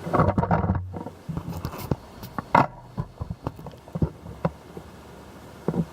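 Close handling noise: a scattered run of sharp clicks and taps, with a low rumble under the first three seconds.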